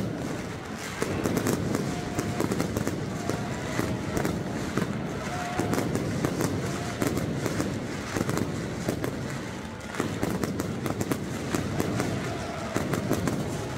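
Stadium pyrotechnic rockets fired off in quick succession, a dense, continuous crackle of many sharp pops and bangs.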